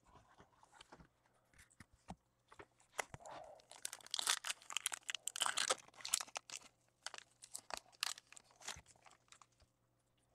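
Faint crinkling and tearing of a foil trading-card pack wrapper, with cards clicking and sliding as they are handled. The crackling is thickest in the middle.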